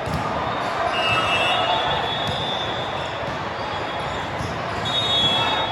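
Busy gym during a game: sneakers squeaking on the court, thuds of a ball, and a steady murmur of crowd voices.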